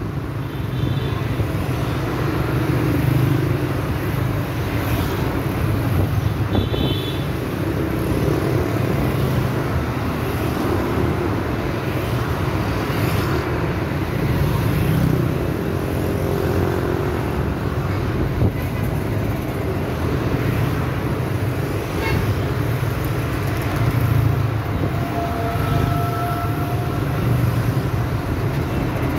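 Dense city road traffic: motor scooters and cars passing close by, a steady mix of engine and tyre noise. A few short horn beeps sound over it, about a second in, around seven seconds, and near the end.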